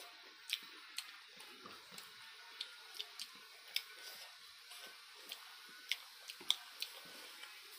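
Eating sounds: chewing and mixing rice and curry with the fingers, with irregular sharp, wet mouth clicks and smacks about once or twice a second.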